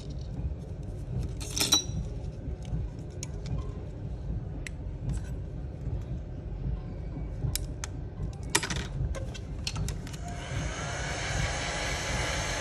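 Small sharp metallic clicks and taps of precision tools on an iPhone 11's internal brackets and connectors, over a steady low rumble. About ten seconds in, a heat gun switches on and runs with a steady blowing hiss and faint whine.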